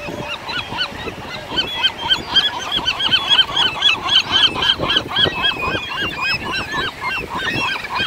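Gulls squabbling over food, giving a rapid run of short, repeated squawking calls that start about a second and a half in and carry on, several a second.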